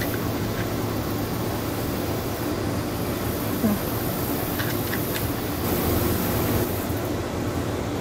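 Steady background noise with a low hum, broken by a few faint ticks near the middle.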